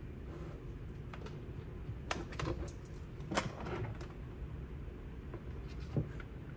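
A few light plastic clicks and taps, about three of them spread out, as parts in a Tesla Model Y's plastic frunk bin are handled and the frunk release cable is fitted, over a low steady background hum.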